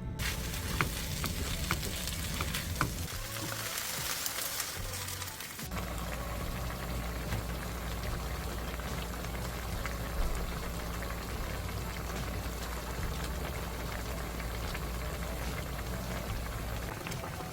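Seaweed and dried pollack cooking in a pot, a dense crackly sizzle over background music, the sound changing abruptly about six seconds in.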